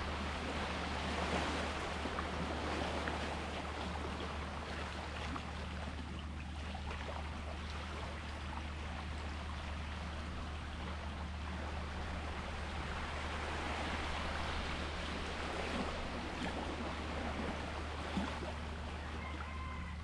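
Small sea waves washing and splashing, swelling near the start and again about two-thirds of the way through, over a steady low hum.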